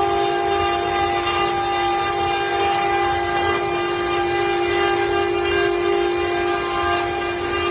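CNC router spindle running with a steady high whine while carving wood, with a hiss of cutting over it.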